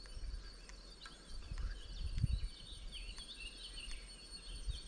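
Outdoor countryside ambience: birds chirping over a steady high-pitched insect buzz, with wind rumbling on the microphone.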